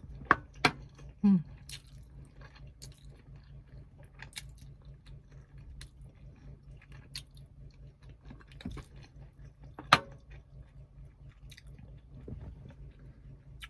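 Close-up mouth sounds of a person eating fish and rice by hand: steady chewing and lip smacking with many small wet clicks. There are a few sharp, louder smacks near the start and one about ten seconds in.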